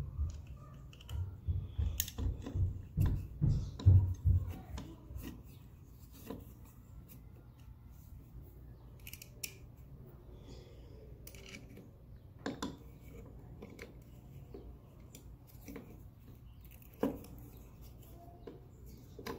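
Folding hex key turning a bow-sight mounting screw: small metallic clicks and scrapes, with heavy handling bumps and knocks for the first few seconds, then sparse sharp clicks.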